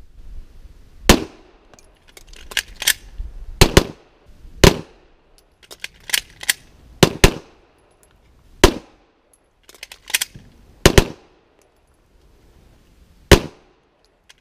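Semi-automatic pistol firing a series of single shots, about a dozen spread one to two seconds apart, some in quick pairs. Between the shots come lighter clicks and clatter from magazine changes.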